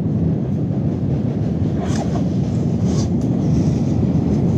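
Steady low rumble of wind on the microphone mixed with sea surf, with faint brief rustles about two and three seconds in.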